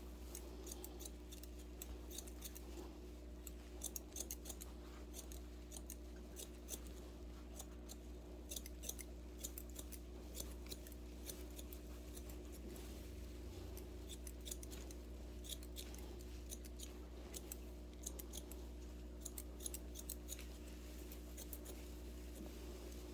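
Long barber's shears snipping hair in quick, irregular runs of cuts over a low steady hum.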